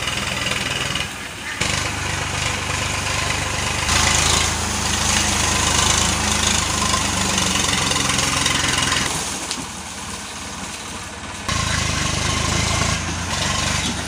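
Diesel tractor engine running steadily as it pulls a trailer loaded with paddy sheaves. It grows louder about four seconds in as it comes close, eases off around ten seconds, then picks up again.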